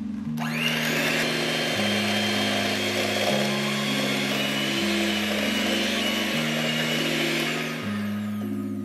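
Electric hand mixer with twin wire beaters beating flour into creamed butter and cream cheese: the motor starts up, runs steadily with a high whine, and winds down near the end.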